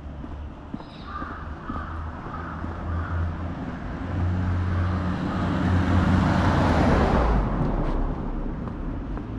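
Crows cawing a few times about a second in, over a low street hum. Then the rushing noise of a car passing swells, peaks and drops away quickly about seven seconds in.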